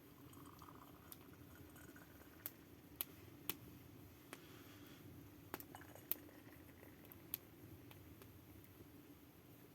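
Near silence over a faint steady hum, broken by about nine scattered sharp clicks and light taps at uneven intervals.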